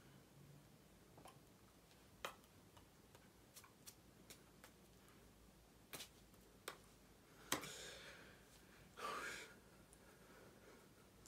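Near silence in a small room, broken by scattered soft clicks and taps as hands meet and brush during sign language. Two short rustles stand out, about two-thirds of the way through and again a second and a half later.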